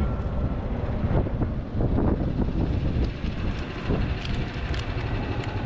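Moving golf cart on asphalt: a steady low rumble of tyre noise and wind on the microphone, with occasional short knocks and rattles.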